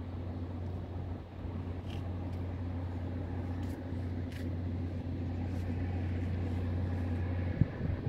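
A steady low machine hum over outdoor background noise, with a few faint clicks and one sharp knock near the end.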